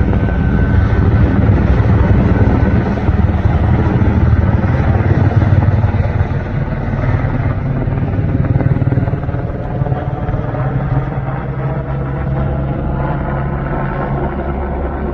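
Helicopter running steadily nearby, its rotor and engine giving a dense low drone that eases slightly in level about halfway through.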